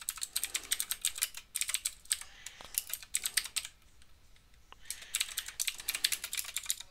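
Computer keyboard typing: two runs of quick keystrokes with a pause of about a second and a half in the middle.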